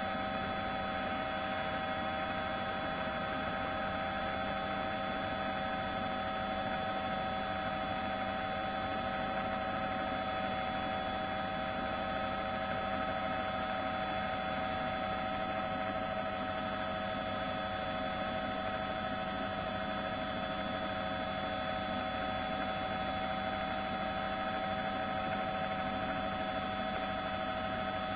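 A steady hum, with several constant whining tones over a low rumble and no change in level.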